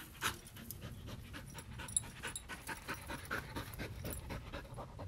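A dog panting fast and rhythmically, winded from running after a ball.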